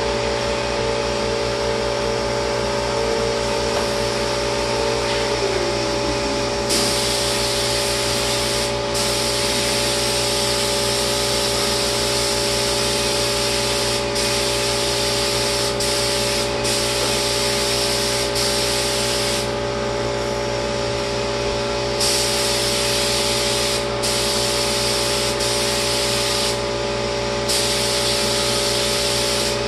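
Lacquer spray gun hissing in long bursts as the trigger is pulled and released, over the steady hum of a motor. The spray comes on strongly about seven seconds in and cuts out briefly several times, with a longer pause a little past the middle.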